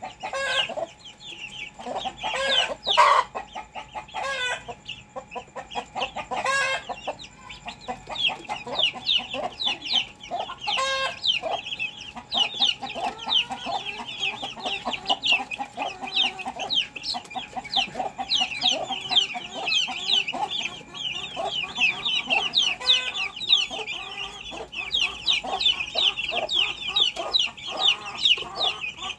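Backyard chickens clucking and calling, with several loud calls in the first dozen seconds and a dense run of rapid, high-pitched chirping after that.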